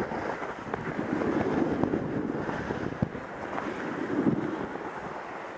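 Dog sled moving over packed snow: a steady rushing scrape of the runners with small irregular knocks, wind on the microphone, and one sharp click about three seconds in.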